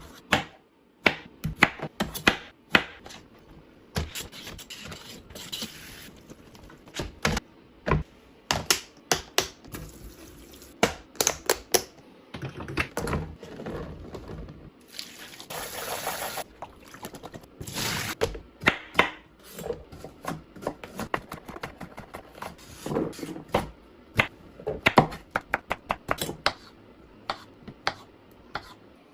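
Kitchen food-prep handling: a long, irregular run of sharp knocks and clicks on the counter and cutting board, with a few seconds of steady hiss about halfway through.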